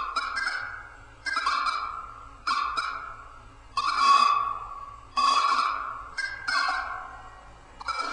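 Soundtrack of an experimental film: a pitched, honk-like tone repeating about every second and a quarter, each one starting suddenly and fading away, sometimes in a quick pair.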